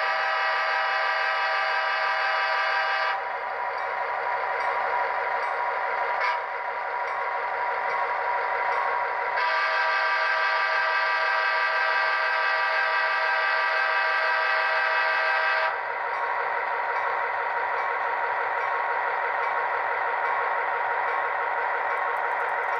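HO-scale Athearn GP15-1 with a Soundtraxx Tsunami 2 sound decoder, playing a diesel locomotive horn over a steady, rhythmic prime mover sound. One horn blast cuts off a few seconds in, and a second, longer blast comes through the middle. The engine sound runs on alone afterwards.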